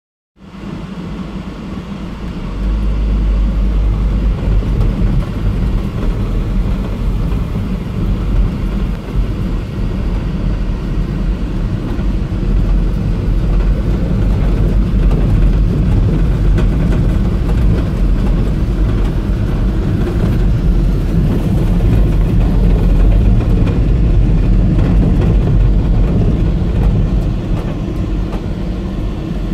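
Vehicle driving over rough stubble-field ground, heard from inside the cab: a steady low engine and ground rumble that comes up about half a second in and gets louder after a couple of seconds.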